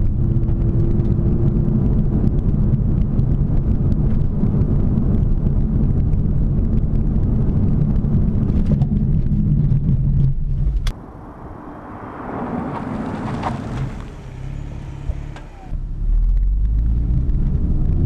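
Car engine and road noise inside the cabin of a Volvo V60 Polestar accelerating to 55 mph. About eleven seconds in it cuts off abruptly as the car comes off the throttle for a hard 55-to-0 test stop on Rotora H8 track brake pads. The quieter stretch that follows carries a swelling tyre and brake noise, and the engine rumble comes back suddenly near the end as the car pulls away.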